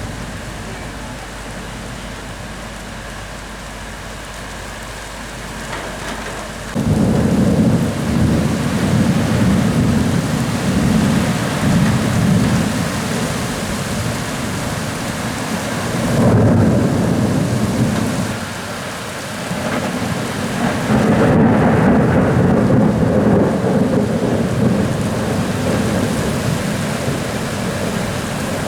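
Heavy downpour with thunder: steady rain hiss, then about seven seconds in thunder breaks suddenly into long low rumbling that swells again twice before easing off.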